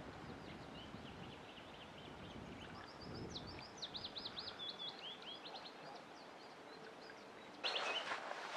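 Small songbirds chirping, with a quick trill in the middle. Near the end, a sudden run of crackling and rustling as dry twigs are snapped and broken off by hand.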